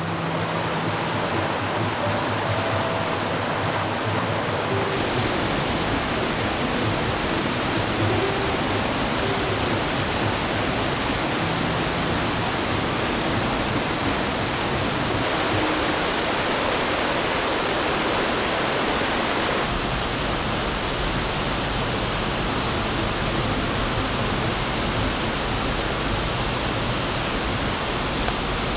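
Steady rushing of flowing water, like a mountain stream or small waterfall. The character of the rush shifts abruptly a few times, about 5, 15 and 20 seconds in.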